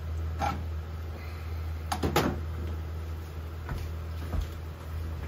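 A frying pan being handled on a gas hob: a few sharp knocks of the metal pan against the burner grate, the loudest a quick double knock about two seconds in. A steady low hum runs underneath.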